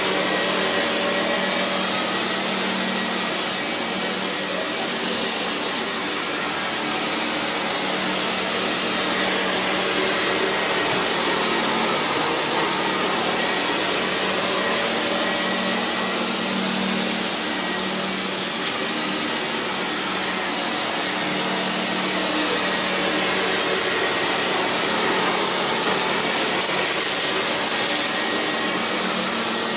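Vacuum cleaner running continuously, its motor giving a steady high-pitched whine over a dense rushing noise.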